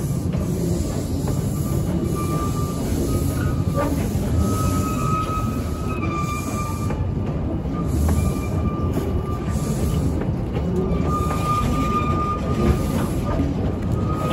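Narrow-gauge passenger coaches rolling past on the rails with a steady low rumble. A thin wheel squeal comes and goes at about the same pitch, and a few sharp clicks sound from the wheels on the track.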